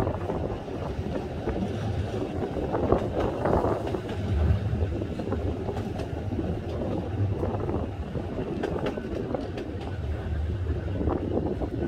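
Heritage double-decker electric tram running along the line, heard from its upper deck: a steady rumble of wheels on rail, with wind on the phone's microphone and a few short clicks and knocks.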